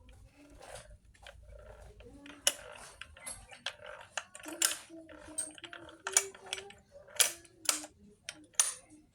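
Sharp metallic clicks and clinks of hand tools and engine parts being handled during assembly of a Vespa engine, roughly one every half second to a second.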